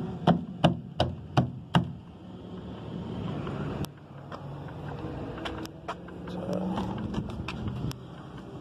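Six sharp knocks in quick succession, about three a second, over the steady low rumble of an idling semi-truck diesel engine. The idle carries on with scattered clicks.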